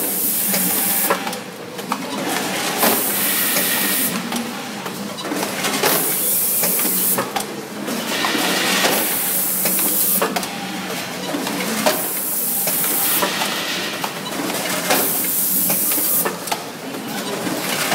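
Candy cup filling and labeling line running. Its pneumatic actuators hiss in short bursts of released air every few seconds, over rapid clicking and clacking of the conveyor and mechanisms and a steady machine hum.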